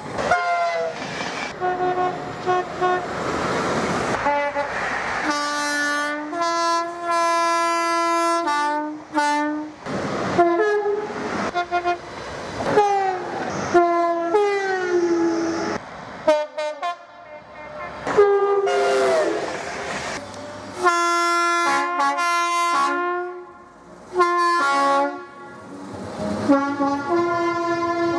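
A string of train horns in short clips, one after another with sudden cuts between them. The blasts step between a higher and a lower note, some held a second or two. One falls in pitch about two-thirds of the way through, and the noise of a train running fills the gaps.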